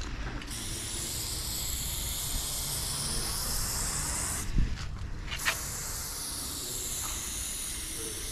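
Aerosol spray paint can hissing in long, steady sprays against a wall. The spray stops briefly a little past halfway, with a knock and a click, then starts again.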